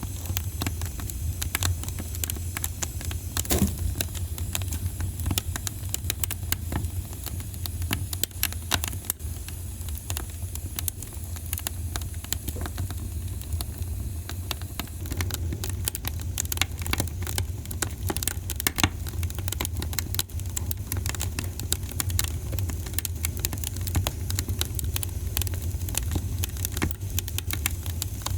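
Wood fire crackling in a fireplace, with many small irregular pops and snaps over a steady low rumble.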